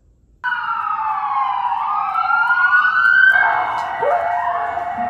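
Emergency vehicle sirens wailing: several overlapping tones glide up and down, and about three seconds in a steadier held tone takes over.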